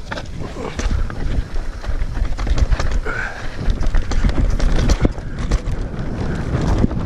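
Mountain bike riding fast down a rough singletrack, its tyres and frame rattling and knocking over stones and ruts in a continuous clatter. Wind rumbles on the rider's camera microphone.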